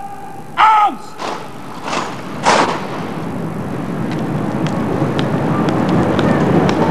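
The final short syllable of a shouted parade-ground word of command about half a second in, followed by three crashing impacts from the ranks as the battalion carries out the drill movement. After that comes a steadily rising hiss of background noise with faint clicks.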